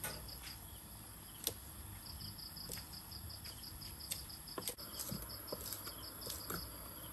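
A knife chopping small green leaves on a chopping block, giving a few sharp, irregular taps, the loudest about a second and a half in. Crickets chirp steadily behind it.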